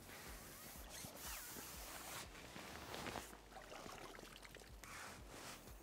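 Faint splashing and dripping of lake water as a common carp is drawn into a landing net and the net is lifted out of the water, with a few irregular wet knocks and rustles.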